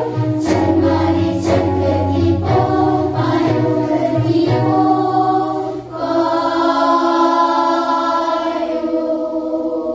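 Young girls' vocal ensemble singing in close harmony over a low bass line and a beat about twice a second. About six seconds in they move to one long held chord that dies away at the end.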